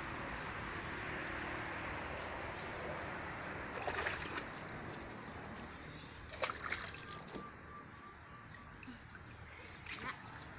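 Water from a garden hose hissing steadily through a multi-balloon filler into a bunch of water balloons, then water splashing and sloshing in the inflatable pool as the filled balloons are dipped in. The splashes come in short bursts about four seconds in, again a couple of seconds later, and near the end.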